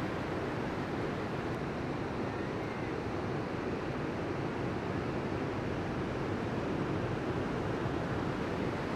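Ocean surf breaking and washing toward shore, a steady rushing noise without separate crashes.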